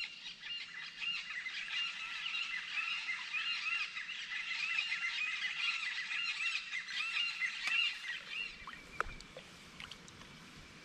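A flock of birds calling together: many short, rising-and-falling notes overlapping, fading out about eight seconds in. A couple of faint knocks come near the end.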